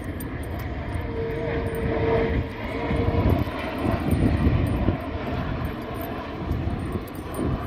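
Airplane passing overhead: a low rumble that swells and then eases off, with a steady engine hum for about two seconds starting about a second in.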